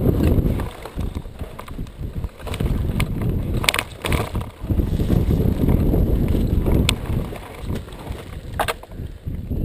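Dirt bike on a steep, loose shale slope, heard through its mounted camera: an uneven low rumble that swells and dips. A few sharp knocks come about four, seven and nine seconds in, as of the bike or loose rock shifting.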